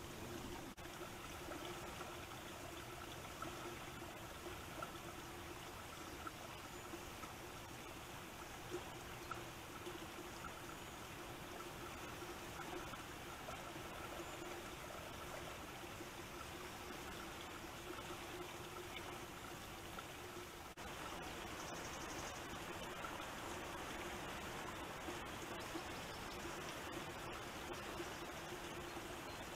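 Faint, steady outdoor rushing of wind and trickling water heard through a trail camera's microphone, with a steady low hum underneath. The noise steps up slightly about 21 seconds in.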